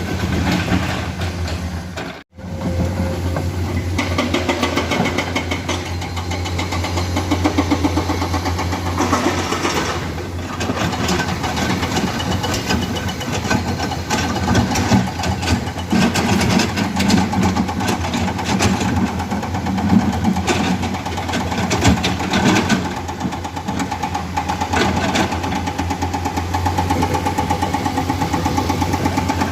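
Komatsu hydraulic excavators' diesel engines running steadily under load, with frequent metallic clanks and rattles from the machines at work. There is a brief break in the sound about two seconds in, and a steady higher whine near the end.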